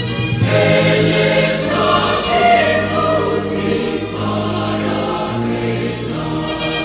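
Choir singing a Christian hymn in held chords that change every second or so.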